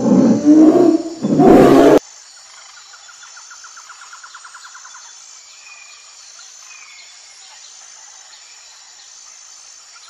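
Polar bear growl, loud and harsh, cutting off suddenly about two seconds in. After it come faint outdoor sounds: a rapid trill for a couple of seconds and a few faint chirps.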